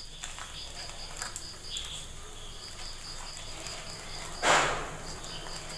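Cricket chirping in a steady, rapid high pulse, with one short, loud rustling swish about four and a half seconds in.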